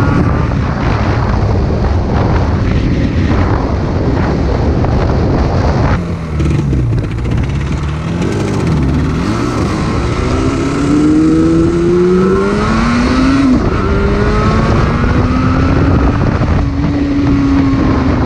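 Yamaha RZ250's two-stroke parallel-twin engine pulling under way, its pitch climbing and dropping as it is ridden through the revs, with a sharp drop about six seconds in, another about thirteen seconds in, and a fall near the end. The engine is sluggish low down and comes on strong around 6,000 rpm.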